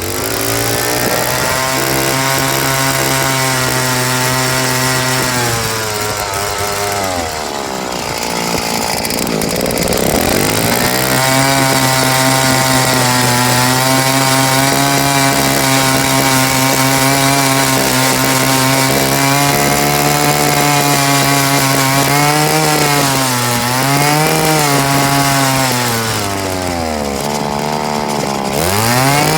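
Small gas engine running at high revs with a steady, high whine. Its pitch sags and recovers about a third of the way in, wavers again later, and rises and falls quickly near the end.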